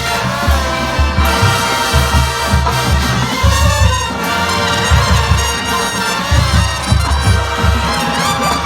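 Brass band music: trumpets and trombones playing over a heavy, repeating low beat.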